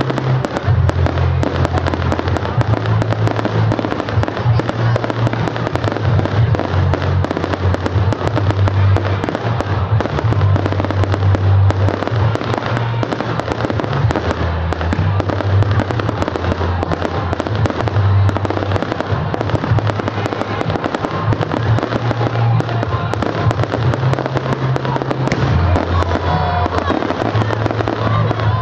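Fireworks display in full barrage: shells bursting and crackling in a dense, unbroken run of bangs and cracks.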